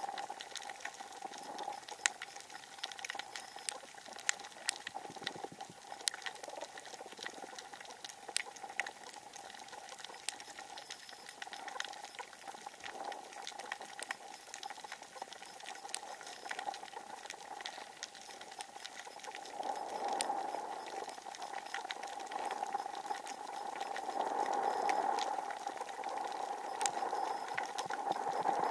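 Underwater on a coral reef: a dense, irregular crackle of sharp clicks, the reef crackle typical of snapping shrimp, over a steady hum. The sound grows louder and rougher in the last few seconds.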